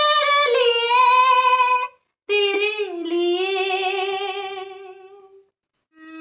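A woman singing an old Hindi film song unaccompanied, holding the long closing notes of a line. A high note breaks off about two seconds in, and after a short gap a lower note with vibrato follows and fades away near the end.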